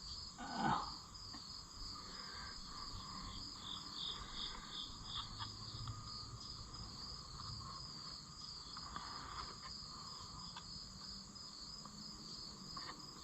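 Crickets chirping steadily in a high, pulsing drone, with a short falling sound near the start and a few faint clicks.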